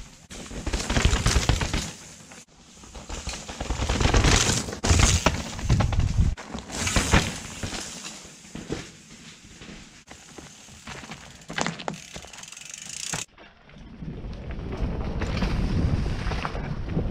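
A mountain bike rides over a dirt trail in loud, uneven bursts of crunching and rattling tyres and frame. About 13 seconds in, the sound cuts to the steady rush of wind buffeting a helmet-mounted camera while riding, mixed with the bike's rattle.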